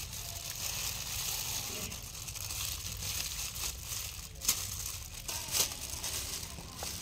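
Thin plastic gloves crinkling as hands pull sticky jackfruit bulbs apart, with two sharper snaps about four and a half and five and a half seconds in.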